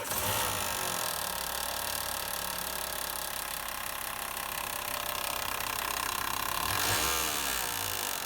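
Renault Logan 1.6 engine running with an unusual fast knocking rattle from the accessory belt drive. The knock comes from the alternator pulley, a two-piece metal–rubber–metal pulley that has developed play.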